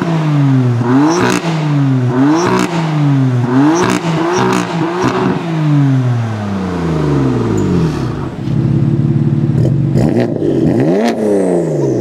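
Stock BMW M4's twin-turbo straight-six revved repeatedly while parked, a string of quick blips about once a second, then settling back to idle. Later a second M4, with an Akrapovic exhaust and catless downpipe, idles louder and is blipped once.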